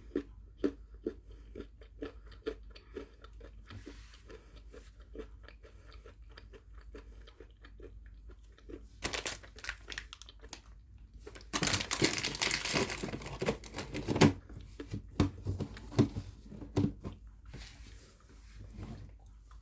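A person chewing chocolate, with a quick run of small wet mouth clicks. From about nine seconds in, a wrapper is handled and torn, loudest for about three seconds before the chewing resumes.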